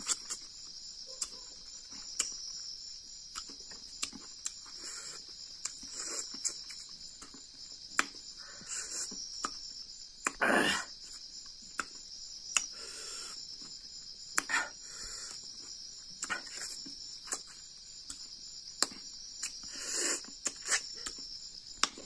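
Close-up eating sounds from someone eating fish by hand: chewing, lip smacks and sharp mouth clicks, with a louder mouth noise about halfway through. Under them, a steady high-pitched trill of crickets.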